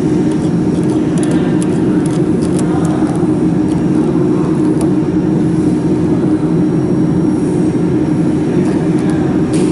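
Steady, loud machine hum with one strong low tone and a few weaker lower tones. Light clicks of a metal tool against the fiber connector fitting come about one to three seconds in and again near the end.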